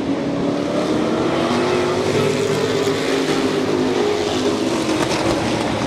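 A pack of Super Pro race trucks running together on a short oval track, several engine notes overlapping and rising and falling slightly in pitch.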